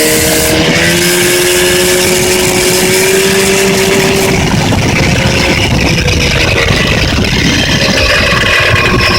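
Yamaha 30 hp outboard motor running, its speed holding steady and then easing down slightly in the second half. The motor has a knock ('стук').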